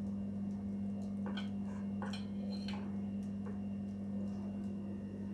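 Steel bowls clinking lightly against the metal stand and pot of a stainless pressure cooker as they are set down inside it: a handful of short knocks between about one and three and a half seconds in, over a steady low hum.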